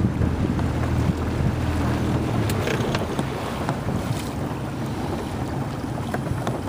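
Wind buffeting the microphone on open water, with a steady low rumble that is strongest for the first two and a half seconds and then eases.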